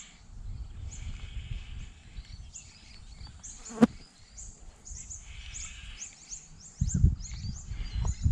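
Birds calling: a quick run of short, high, falling chirps in the second half, over low rumbling noise that swells near the end, with one sharp click about four seconds in.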